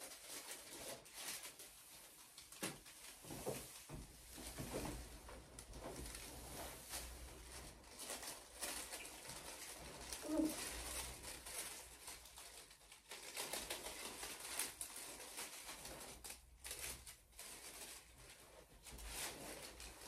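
Foil fringe curtain rustling and crinkling in irregular bursts as it is handled and hung up, with occasional light taps.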